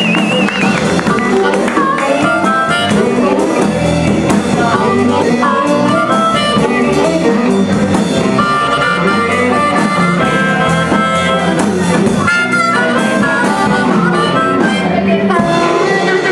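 Live blues band: an amplified harmonica, cupped against a vocal microphone, plays lead over electric bass and electric guitar.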